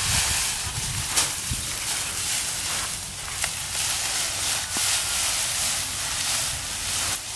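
Dry, cut rice straw rustling and crackling as it is gathered and pressed into a bundle by hand, with many small crackles throughout.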